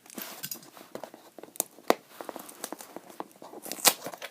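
Rustling and crinkling of packaging being handled and pulled open, with scattered sharp clicks and taps, the loudest near the end.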